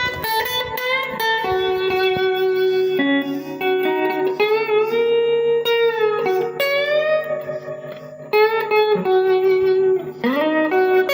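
Electric guitar played through the Meteor Taco Wagon, a small homemade tube guitar amp, with a clean tone and reverb. It plays sustained single notes and double-stops, several of them bent up in pitch, eases off briefly near the middle, then comes back with a loud attack.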